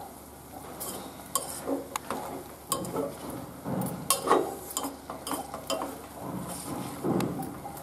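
Moringa leaves and grated coconut being stirred and tossed in a metal pot, the utensil scraping and knocking irregularly against the pot's sides.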